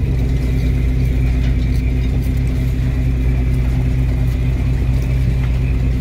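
A fishing boat's engine running steadily: a continuous, deep, unchanging hum.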